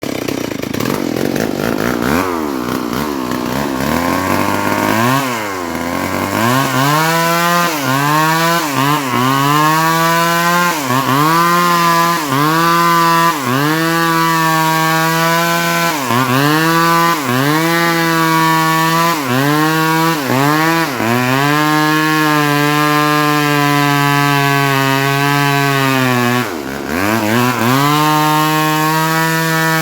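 Stihl MS 381 two-stroke chainsaw running at high revs while cutting suar wood. Its note dips briefly and recovers every second or two as the chain loads in the cut, holds steadier later, and falls away sharply once near the end before revving back up.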